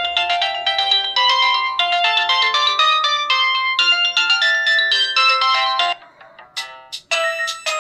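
Samsung SCH-A815 mobile phone playing a ringtone: a quick melody of short, bright electronic notes that stops about six seconds in. After a brief lull, another ringtone starts near the end.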